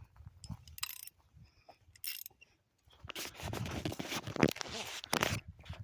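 Metal tools and hardware being handled: a few sharp clinks, then a stretch of dense rattling and scraping with several louder knocks, from about three seconds in.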